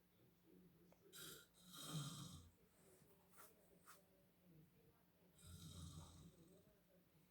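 A man snoring in his sleep, heard faintly through a closed bedroom door: two long snoring breaths about four seconds apart, the first the louder.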